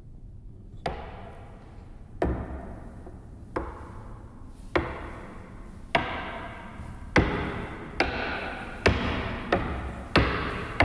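Heavy chopping blows into wood, about ten of them, coming faster and faster, from roughly one every second and a half to nearly two a second. Each blow lands with a sharp crack and leaves a long echoing tail.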